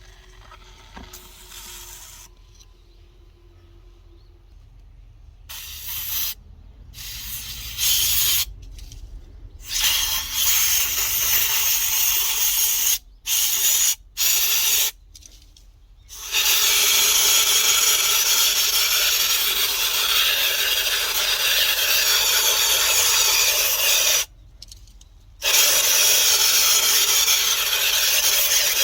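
A high-pressure spray hissing, switched on and off in short bursts and then in longer runs with brief pauses, each burst starting and stopping abruptly.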